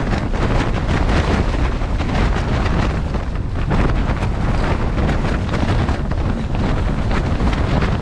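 Storm-force wind battering a collapsed tent, the fabric flapping and snapping without pause against the person inside, over a heavy low rumble of wind on the microphone.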